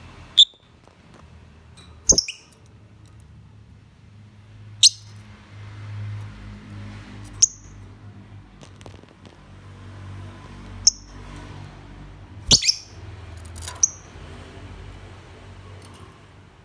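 Lovebird giving short, shrill chirps, about seven single calls spaced a few seconds apart, over a faint low hum.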